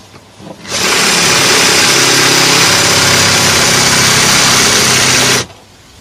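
Cordless drill running at steady speed for about five seconds, its bit cutting through a rivet in the steel end cover of a washing machine motor to free the cover. It starts about a second in and cuts off suddenly near the end.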